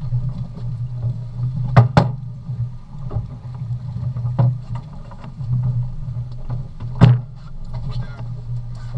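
Boat engine running steadily with a low hum, broken by sharp knocks and thumps now and then, the loudest a pair about two seconds in and one about seven seconds in.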